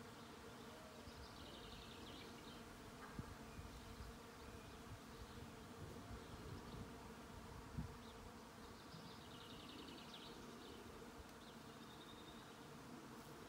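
Faint, steady hum of many honey bees foraging among the catkins of a flowering male goat willow.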